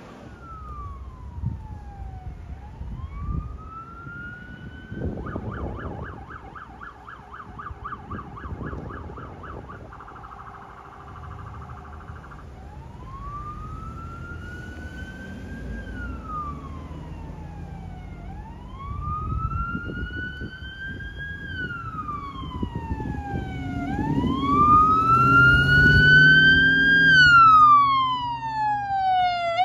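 Emergency vehicle siren on a slow wail, rising and falling about every five seconds. A fast warbling yelp overlaps for about five seconds early on. The wail and a vehicle engine grow much louder toward the end as the vehicle approaches.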